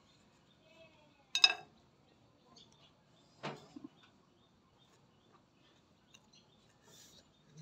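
Fruit being peeled with a knife and eaten, in a mostly quiet stretch. There is a short, sharp pitched click about a second and a half in, the loudest sound, and a knock about three and a half seconds in, with a few faint ticks between.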